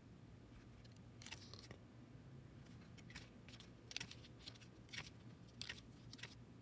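Near silence with faint, scattered light clicks and ticks, about one or two a second, like small objects being handled.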